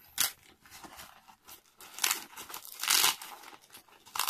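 Nylon fabric of a military magazine pouch rustling and rubbing as it is handled and its flap and strap are worked, in several short bursts, the longest about three seconds in.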